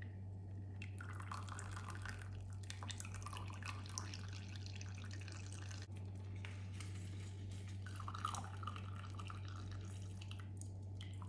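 A lemon squeezed by hand over a pot of hot milk: juice dripping into the milk with wet squishing of the fruit, heard as faint, irregular drips and crackles over a steady low hum.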